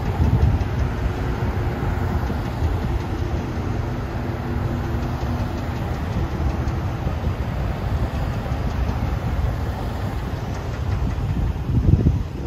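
Police cars and pickup trucks driving slowly past in a line: steady engine and tyre noise, with a held engine drone through the first few seconds.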